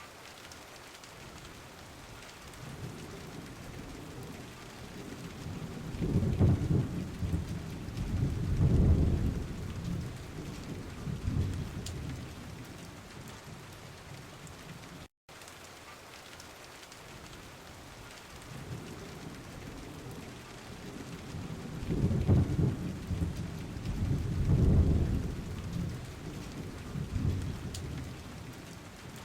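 Steady heavy rain falling, with two low rolls of thunder that swell and fade over several seconds each, one near the start and one in the second half. The sound drops out for an instant about halfway through.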